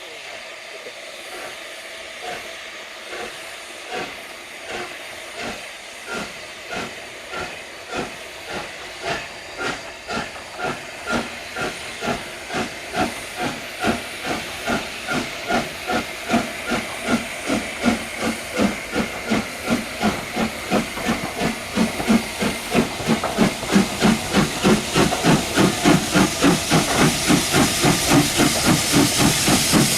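Steam locomotive working under load with a hiss of steam, its exhaust beats coming faster and growing steadily louder as it draws nearer.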